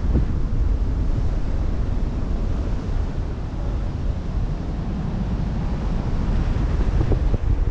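Wind buffeting the microphone in a heavy, gusty rumble, over a steady rush of open-sea waves.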